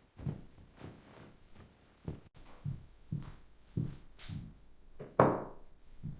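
A series of soft, low thuds repeating irregularly, about one or two a second, with a louder hit about five seconds in.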